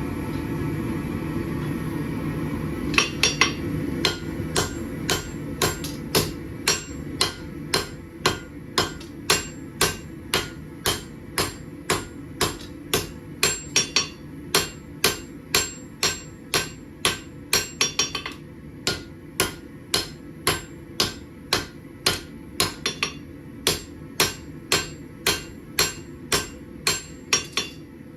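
Blacksmith's hammer striking hot steel, about two blows a second with an occasional quick double blow, each with a bright metallic ring: the bar is being drawn out into a knife blade. A steady low hum runs in the first few seconds before the hammering starts.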